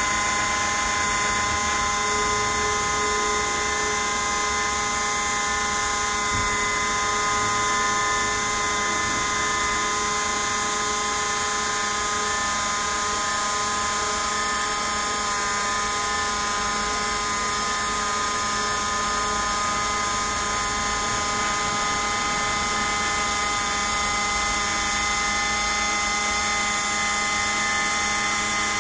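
CNC router spindle whining steadily as its bit carves a foam block, several high tones held at a constant pitch.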